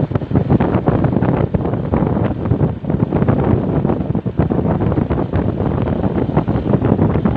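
Wind buffeting the microphone on a moving vehicle, with road and engine noise beneath.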